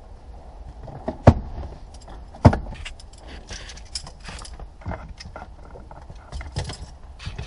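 Metal hand tools clinking and knocking as they are handled, with two sharp knocks about a second and two and a half seconds in and lighter rattles later.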